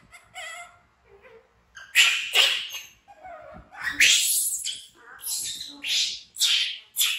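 Baby macaque screaming: soft whimpering squeals, then from about two seconds in a run of loud, shrill screams one after another, the cries of a frightened infant monkey.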